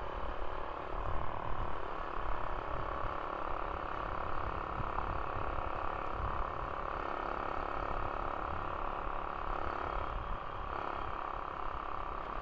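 A motorcycle under way: steady road and wind noise, with a fluctuating low rumble and the engine running underneath.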